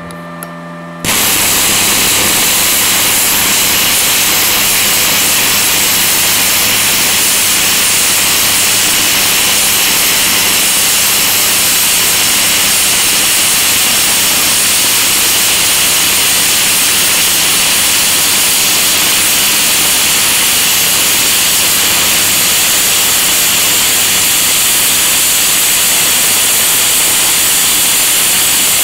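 Gasless flux-core arc welding with a Parkside PIFDS 120 A1 inverter welder on 8 mm steel: after a brief low hum, the arc strikes about a second in and runs as a loud, steady hiss to the end.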